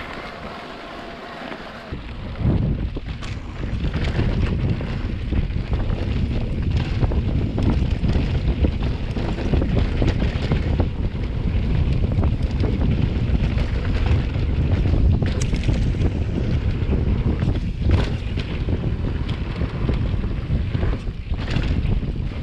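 Wind buffeting the microphone of a moving electric mountain bike, starting about two seconds in, with scattered short knocks over the rumble.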